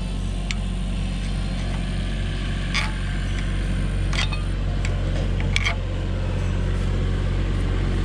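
Engine idling steadily, with a few short sharp taps, likely tools on metal, spread over the first half-dozen seconds.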